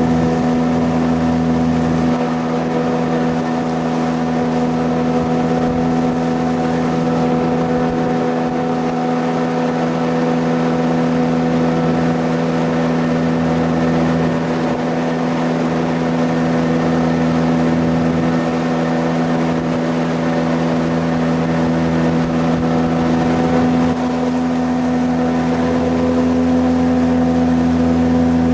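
Jet boat's engine running steadily at speed, a loud even drone with the rush of water and wind beneath it.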